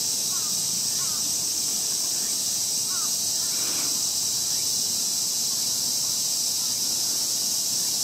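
Steady, high-pitched shrill drone of an insect chorus. A few short faint rising chirps come in the first three seconds, and a single harsher call sounds about halfway through.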